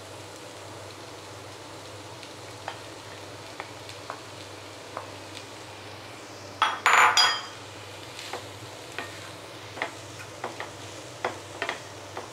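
Chicken fried rice ingredients sizzling quietly in a non-stick wok, with a wooden spatula tapping and scraping against the pan in scattered single knocks. About seven seconds in comes a brief, louder clatter with a slight metallic ring as fried chicken pieces are added.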